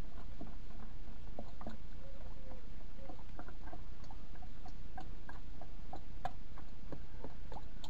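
Transmission oil glugging and gurgling out of a plastic canister as it is poured into a tractor's transmission filler: an irregular run of short gurgles and ticks over a low steady rumble.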